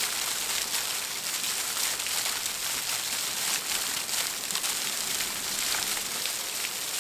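A thin waterfall pouring off a cliff and spattering onto rocks and sand close by: a steady hiss of falling water, like heavy rain.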